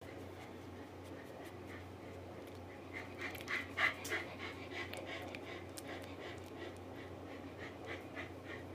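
Newborn Sheltie puppy, three days old, making short high squeaks in a quick even run of about four a second, loudest around four seconds in.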